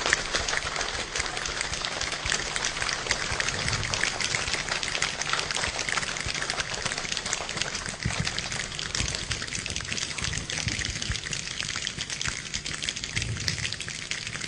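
Hands imitating a rainstorm: a dense patter of many quick taps and clicks that sounds like falling rain, easing off over the last few seconds.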